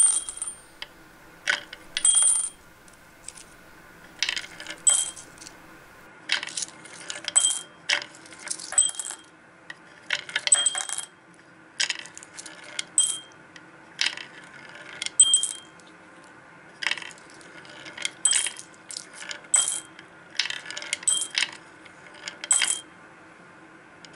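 Coins fed one after another into a wooden self-sorting coin bank, running down its slanted ramp and dropping into small glass jars, each landing with a bright ringing clink. The clinks come about one or two a second with short pauses, as the bank sorts the coins by size into the jars.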